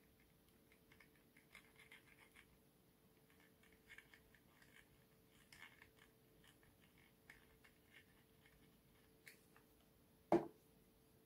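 Faint scratching and rubbing as a glue bottle's nozzle is worked over the end of a small 3D-printed plastic stamp handle, then one sharp knock about ten seconds in.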